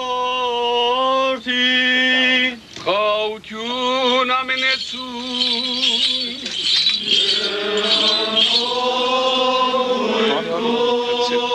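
A man sings an Armenian church chant, holding long steady notes joined by short ornamented runs. A bright metallic jingling or rattling sounds behind the voice through the middle.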